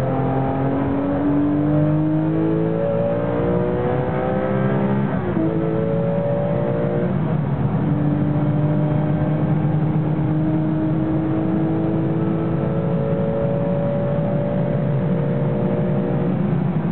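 Porsche 996 GT3 RS race car's flat-six engine heard from inside the cabin under hard acceleration. Its pitch rises and drops back with quick upshifts about 3, 5 and 7 seconds in, then climbs slowly through one long pull in a single gear before another shift near the end.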